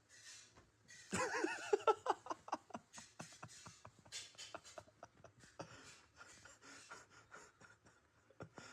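A person laughing hard: a loud voiced burst of laughter about a second in, then breathy, wheezing pulses of laughter, several a second.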